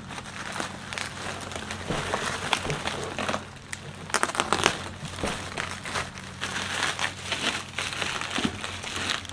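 Bubble wrap crinkling and rustling as hands pull at and handle it, with irregular crackles, loudest about four to five seconds in.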